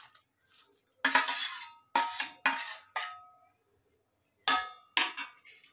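Steel spoon scraping and knocking against a steel plate as soaked sago pearls are pushed off it into a pan of milk: about seven sharp metallic clinks, each with a short ringing tone.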